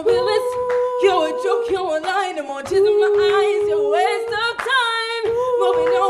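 Small vocal group singing a cappella in harmony, several voices holding long notes together and sliding between them.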